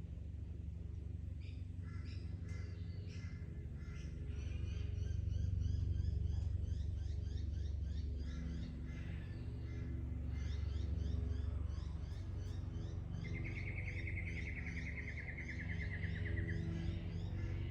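Wild birds in Australian bush calling with many short repeated chirps. About thirteen seconds in, one bird gives a rapid trill lasting about three seconds, falling slightly in pitch. A steady low hum runs underneath.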